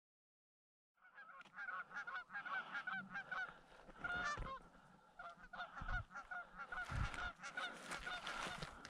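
A flock of geese honking, many overlapping calls starting about a second in, with a few low thumps among them.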